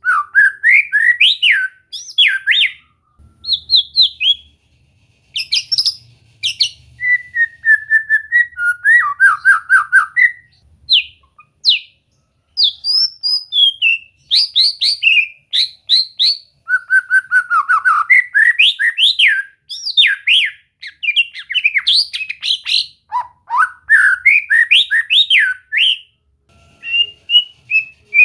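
White-rumped shama singing: varied phrases of clear, loud whistles, gliding notes and rapid note runs, mixed with sharp clicks, broken by short pauses between phrases.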